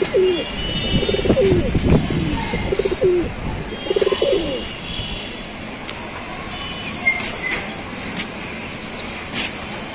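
Domestic pigeons cooing: several coos in the first half, then quieter with a few faint chirps.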